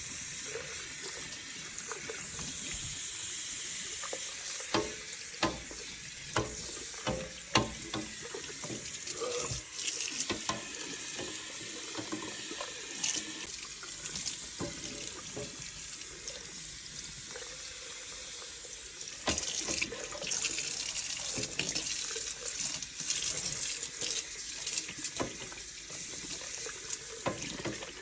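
Tap water running into a sink, with scattered knocks and clatter of things being handled and washed.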